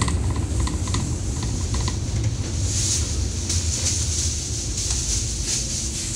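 Interior sound of a Zyle Daewoo NEW BS106 CNG city bus: a steady low rumble of the engine and running gear, with a run of light, evenly spaced ticks in the first two seconds and an intermittent high hiss in the second half.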